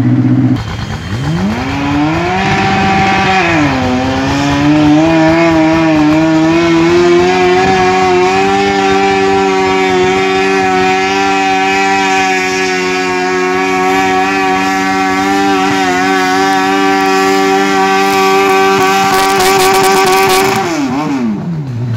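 Lawnmower engine picking up speed about a second in, running at a steady speed, then slowing down near the end.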